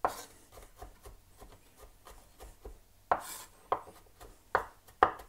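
Kitchen knife finely chopping garlic cloves on a cutting board: a run of light, even taps, then several louder knocks from about three seconds in.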